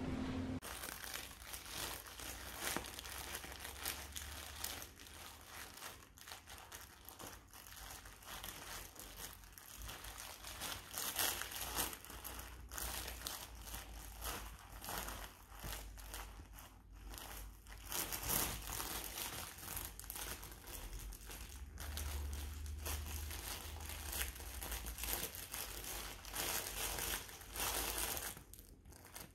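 Plush Dunkin' Munchkin box dog toy crinkling and rustling irregularly as a golden retriever puppy chews and paws at it, with louder flurries now and then.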